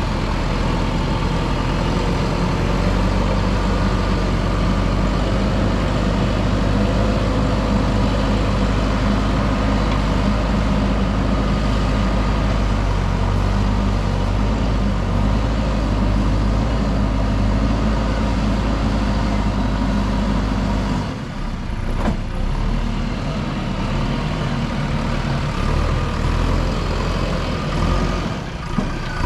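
JCB backhoe loader's diesel engine running steadily under work, a low, even note whose level dips briefly about two-thirds of the way through and again near the end.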